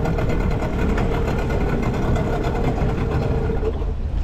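Small outboard motor driving an inflatable boat at low throttle: a steady drone with a held mid-pitched tone over a low rumble. Near the end the tone stops and the motor falls away, leaving a wind-like hiss.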